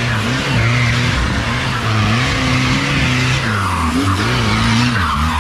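Off-road 4x4 engine revving up and down repeatedly under load, with a hiss of tyres spinning.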